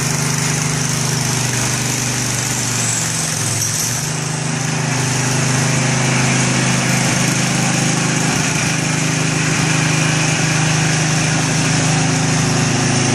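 Craftsman rear-tine tiller's small single-cylinder engine running steadily on a test run after its gearbox rebuild. Its note shifts slightly about four seconds in as the tiller is walked forward.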